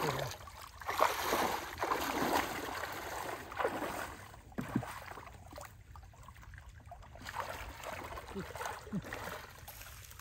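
Muddy water sloshing and splashing as hands grope through a shallow ditch for fish, in irregular bursts that are busiest in the first few seconds and lighter afterwards.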